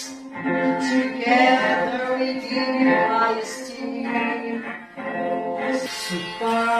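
A woman singing a school hymn solo into a microphone, with musical accompaniment.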